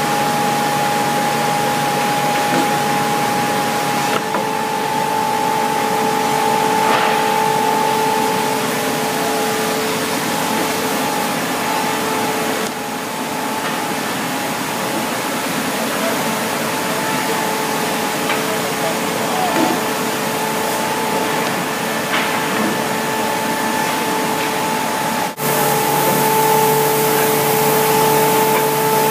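Industrial wide-belt sanding line for wood panels running: a steady rushing noise with a constant two-tone hum. It breaks off for an instant near the end and resumes.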